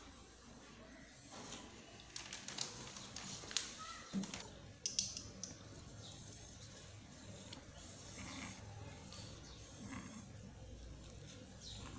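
Cats shuffling about in a cardboard box: a run of clicks and rustles between about two and five seconds in, and short breathy hissing noises through the rest.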